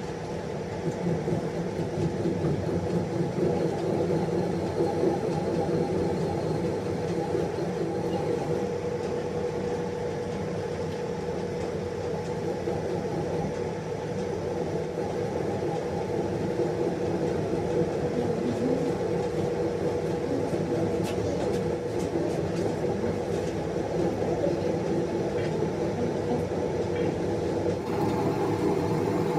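Metal lathe running steadily, its spinning chuck and gear train giving a constant mechanical hum with a steady tone through it. A few light ticks come about two-thirds of the way through.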